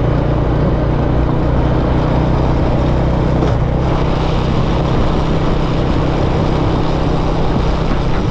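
Small scooter's engine running steadily while riding along a road, under a dense rush of wind and road noise.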